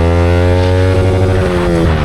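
Yamaha R15 V4 motorcycle's single-cylinder engine pulling under acceleration, its pitch climbing steadily, then dropping with an upshift near the end.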